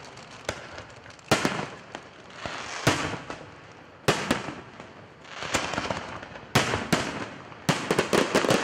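Aerial firework shells bursting: sharp bangs every second or so, each trailing off in a fading rush of noise, then a quick volley of bangs near the end.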